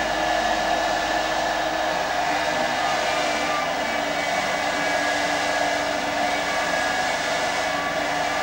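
Handheld power polishing tool running steadily on silver, a constant whirring hiss with a few steady whining tones through it.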